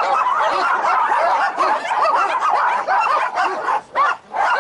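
Many small dogs barking at once in a kennel, a dense chorus of high, overlapping yaps with two brief lulls near the end.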